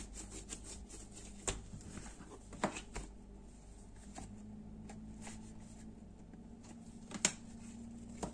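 Soft handling noises of bread dough being divided with a plastic bench scraper on a silicone baking mat, with a few light taps and clicks, the sharpest about a second and a half, two and a half, and seven seconds in.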